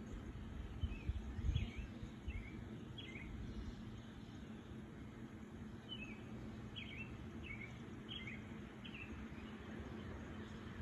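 Small birds chirping: a series of short high notes, about one every half second, pausing for a few seconds midway, over a steady low rumble. A few low thumps about a second in are the loudest sounds.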